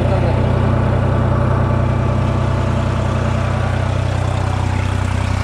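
New Holland 3630 tractor's diesel engine running steadily at about 1200 rpm while driving a super seeder, a constant low hum with no change in pitch.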